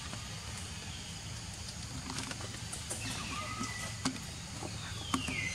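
Outdoor ambience: a steady low rumble with a few faint clicks. Two high whistled calls fall in pitch, one about three seconds in and a longer one near the end.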